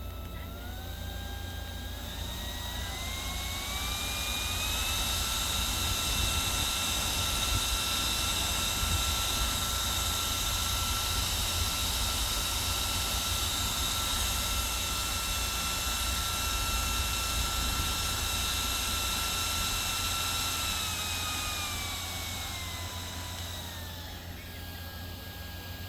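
Small electric cooling fan running: its motor whine rises in pitch over the first few seconds as it speeds up, holds at full speed with a steady airy hiss, then falls in pitch as it slows down near the end.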